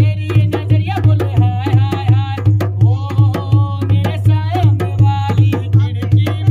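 Rajasthani folk music: a steady, rhythmic hand-drum beat under a gliding singing voice, with sharp clicks in time.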